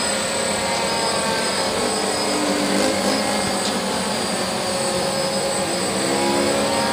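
DJI F550 hexacopter's six electric motors and propellers running while it hovers in GPS hold: a steady whirring buzz of several tones. Some of the tones rise a little near the end as the motor speeds change.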